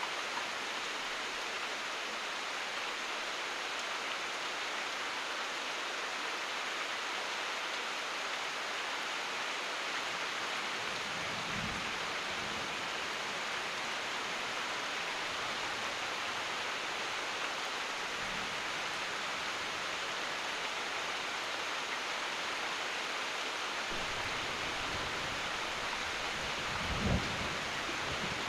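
Steady heavy rain hissing. A low rumble of thunder comes about twelve seconds in, a brief one around eighteen seconds, and a longer rumble over the last few seconds with a louder clap near the end.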